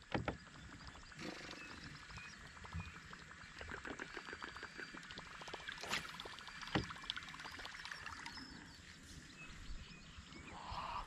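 Fishing reel being wound in to retrieve a lure, a fast fine ticking, with a few sharper clicks.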